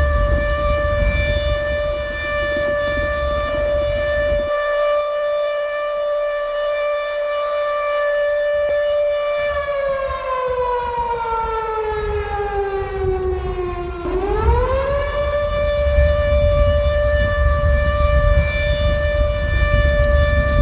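Earthquake-drill alarm siren sounding a steady wail. About ten seconds in its pitch slowly sinks, then a little after halfway it sweeps quickly back up to the steady tone, with a low rumble underneath at the start and again after the sweep. The siren signals the drill, the alert to take cover or evacuate.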